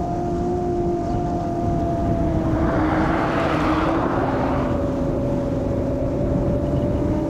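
Molecula FPV M7 long-range FPV quadcopter's motors and two-bladed propellers humming steadily in fast flight. A rush of air noise swells about two and a half seconds in and fades by about five seconds, and the hum drops slightly in pitch around the middle.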